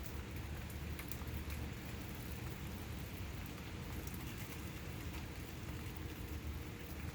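Steady rain falling during a thunderstorm, with scattered sharp ticks of drops hitting nearby surfaces over a low, steady rumble.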